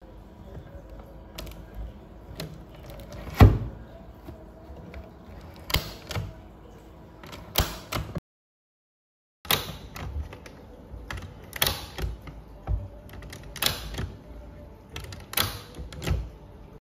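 Footrest being adjusted: its metal height bracket and plastic panels clicking and clacking as the top panel is moved through the bracket's notched positions. There are several sharp clacks at uneven intervals, with one loud knock about three and a half seconds in and a short gap of silence a little past the middle.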